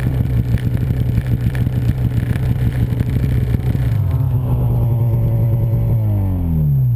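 Snowmobile engine running hard with a rough, pulsing sound. About four seconds in it turns smoother and steady, and near the end its pitch falls as the revs drop.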